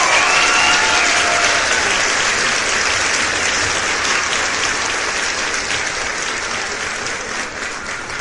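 Crowd applauding: dense clapping from many hands, with a shout or two in the first second, slowly dying down.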